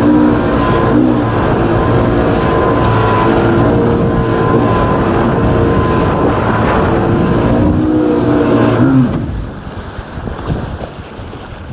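A mini jet boat's engine running steadily under way, with a high steady whine above the engine note. Its pitch dips briefly twice. About nine seconds in, the engine sound drops away sharply and much quieter noise remains.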